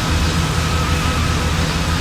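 Strong wind buffeting the microphone, a loud steady roar with an uneven low rumble, with a faint steady high whine running through it.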